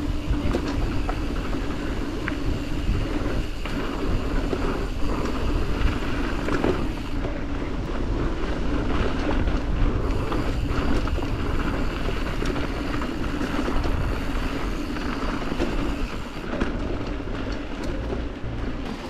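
Yeti SB140 mountain bike rolling fast down a rough dirt trail: tyres running over dirt and rock with a steady rattle and many small clicks from the chain and frame, and a low wind rumble on the camera's microphone.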